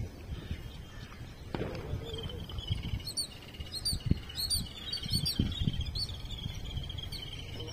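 Small birds chirping outdoors: repeated short, sharp chirps over a steady high-pitched trilling note, with a low rumble underneath.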